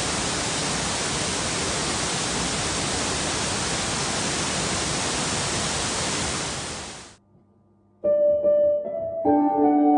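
Waterfall rushing: a steady, even noise of falling water that fades out about seven seconds in. After a second of near silence, music with ringing, sustained notes begins.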